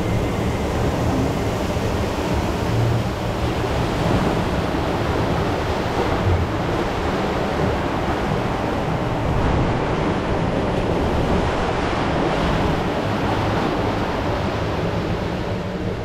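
Steady rush of water around a river rapids raft, with waterfalls pouring beside the channel and wind buffeting the microphone.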